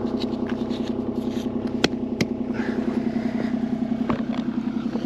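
Excavator engine running steadily with an even, pulsing throb. Two sharp clicks about two seconds in.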